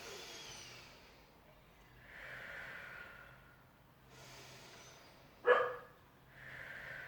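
Slow, audible breaths in and out during a stretch, with one short sharp dog bark about five and a half seconds in.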